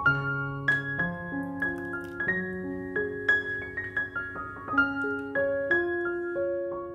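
Background piano music: a slow, gentle melody of struck notes over held lower notes.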